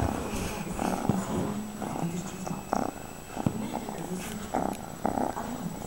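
Ginger-and-white kitten purring steadily while being stroked, with a few soft knocks and rustles from the handling.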